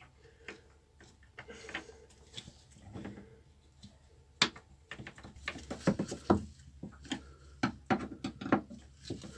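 Screws being driven back into the pump base of a Jabsco manual marine toilet with a screwdriver: faint, scattered small clicks and scrapes, sparse at first and busier from about halfway through.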